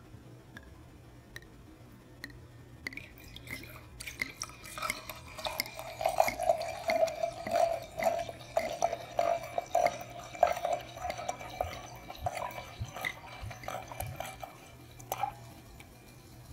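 White wine glugging from a glass bottle into a stemmed wine glass: an irregular gurgling pour that starts about five seconds in, runs for about ten seconds and stops shortly before the end, after a few faint clinks.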